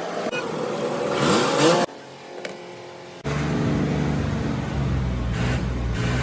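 Fiat 480 tractor engine revving up with a rising pitch, cut off suddenly, then after a short quieter stretch running steadily with a low, even rumble.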